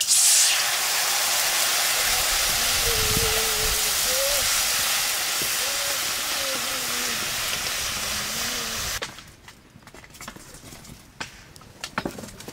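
A stream of water pouring from a kettle into a steel karahi (wok), a steady rushing splash, brightest as the stream first strikes the empty pan. It cuts off suddenly about nine seconds in.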